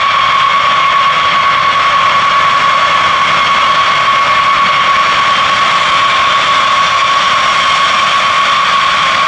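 B-52H Stratofortress taxiing on its eight TF33 turbofan engines. The jets give a steady, loud whine with a strong high tone over a dense hiss.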